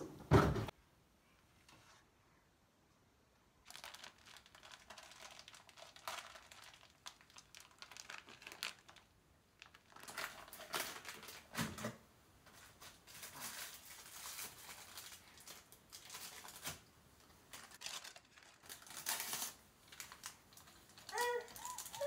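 Items and packaging being handled and wiped inside a cabinet: intermittent rustling and crinkling, with a knock just after the start. A short voice-like cry comes near the end.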